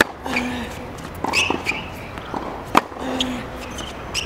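Tennis rally on a hard court: two sharp racket-on-ball hits about three seconds apart, with softer knocks of ball bounces and footfalls between.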